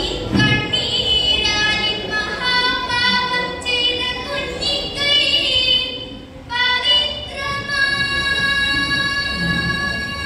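A girl singing a Malayalam poem in the melodic chanting style of a kavitha recitation, her voice rising and falling in short phrases and then holding one long note near the end.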